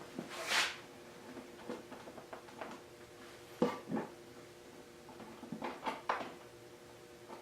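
Light handling noises of small hardware and tools. There is a brief rustling scrape, then two sharp knocks about half a second apart, and a few small clicks and taps later, over a faint steady hum.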